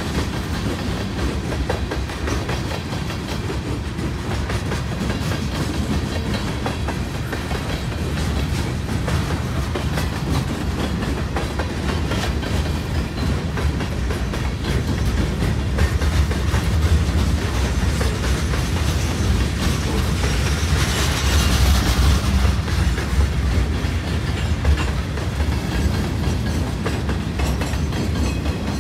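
Freight cars of a long freight train rolling past close by: a steady clickety-clack of wheels over the rail joints over a continuous low rumble.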